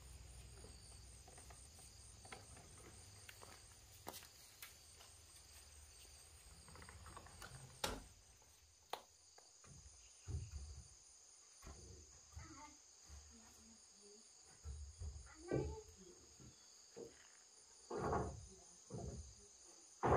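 A steady, high-pitched insect chorus, with scattered knocks and clatter that come more often and louder in the second half.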